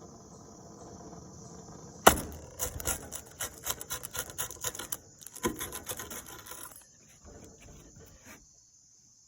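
Crisp grilled pizza crust being cut: a sharp crack about two seconds in, then a run of rasping, crunching scraping strokes that thin out and stop shortly before the end. Crickets chirp steadily behind it.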